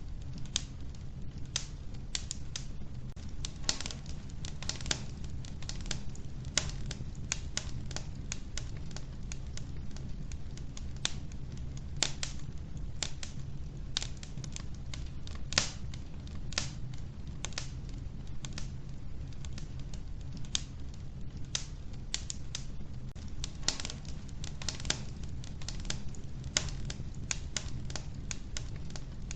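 Logs burning in an old wood-burning stove, crackling with irregular sharp pops and snaps, several a second, over a steady low rumble.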